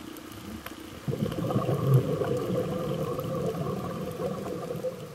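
Scuba diver's exhaled bubbles gurgling out of the regulator. The bubbling starts about a second in and tails off near the end.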